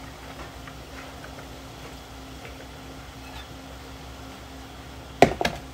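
Sliced onions and peppers tipped from a plastic bowl into a frying pan of cooking chicken: faint soft rustling over a steady low hum. Two sharp clanks of kitchenware near the end.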